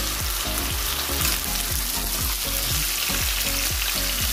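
Raw chicken pieces sizzling steadily in hot oil in a steel wok over a strong flame, searing with garlic, onion and ginger.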